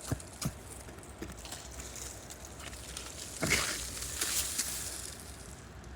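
Digging by hand in soil around a buried metal object: a few light knocks near the start, then a louder rush of scraping and crumbling dirt about three and a half seconds in.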